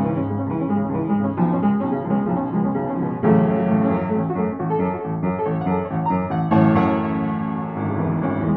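F. Geissler upright piano played with both hands in a continuous passage of many quick notes. Louder chords are struck about three seconds in and again about two-thirds of the way through.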